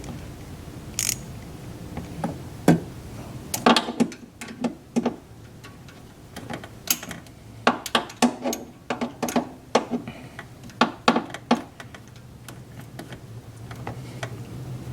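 Hand tools working a fastener on a car: irregular sharp metallic clicks and clanks, coming in two clusters, the second longer and denser.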